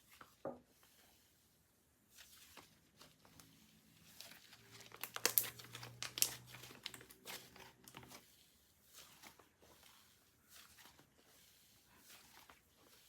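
Icee slime being worked by hand, giving off fine crackling and crinkling clicks, loudest about five to six seconds in.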